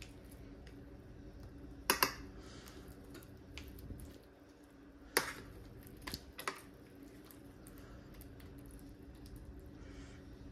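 A metal fork clinking and scraping against a metal roasting pan as chicken pieces are turned over in their sauce, with a few sharp clicks about two, five and six and a half seconds in, over a faint steady hum.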